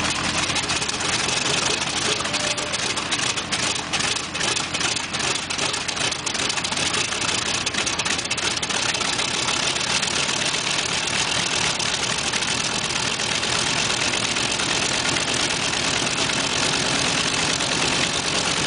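B-25 Mitchell's Wright R-2600 Twin Cyclone radial engine idling after its start. It runs steadily, with a stretch of irregular crackling and dips a few seconds in before settling.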